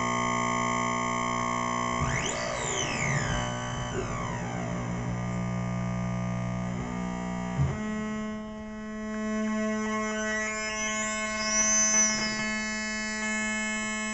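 MFOS Alien Screamer DIY noise box, an oscillator circuit played through speakers with reverb: a buzzy electronic drone with pitch sweeping up and down about two seconds in. A little past halfway it switches suddenly to a different steady drone, with a high arching sweep near the end as the knobs are turned.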